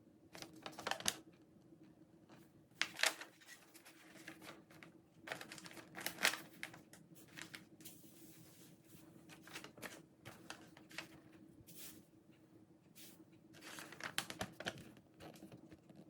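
Watch packaging being handled and opened: irregular bursts of rustling and sharp clicks over a faint steady hum.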